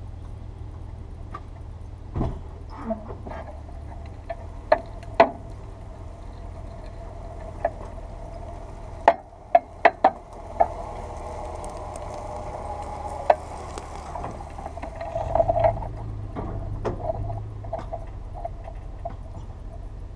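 A tow vehicle's engine running steadily under load as it drags a riding mower up a bank on a heavy chain, building louder about fifteen seconds in. Sharp metallic clanks and knocks from the chain and mower come through now and then, the loudest cluster about nine to ten seconds in.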